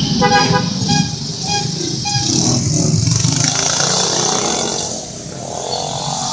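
A bus's telolet horn playing a quick run of short musical notes, followed by three more short toots about half a second apart. Underneath is the steady engine and road noise of passing traffic.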